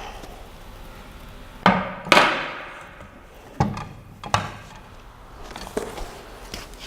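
Hard knocks of machine parts being handled and set down during an unboxing: two sharp knocks close together about two seconds in, the second the loudest, then a few lighter knocks.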